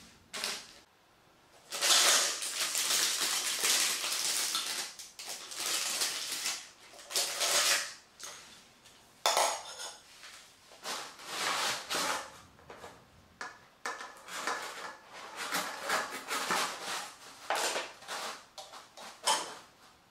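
Metal rods and hard plastic parts of a flat-pack shoe rack clattering and clinking as they are handled and moved about, in irregular runs.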